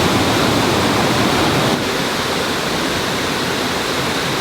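Waterfall: a steady loud rush of falling water, dropping slightly in level a little under two seconds in.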